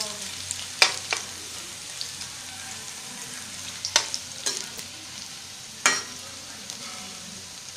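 Onion besan pakoras frying in shallow oil in a metal wok with a steady sizzle, while a metal spatula stirs and turns them. The spatula knocks sharply against the pan a few times: about a second in, around four seconds, and near six seconds.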